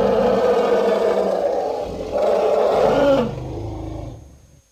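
Elephant calling: a loud, long call, then a second loud call about two seconds in, trailing off into a lower, quieter sound that ends just before the close.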